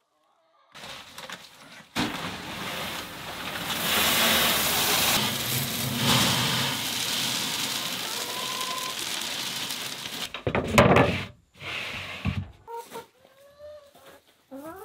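Loose chicken feed and grit pouring through a wooden dispensing box and out of its holes into a tray, a steady hissing rattle for several seconds, then a short louder clatter. Near the end come a few quieter rustles and short hen calls.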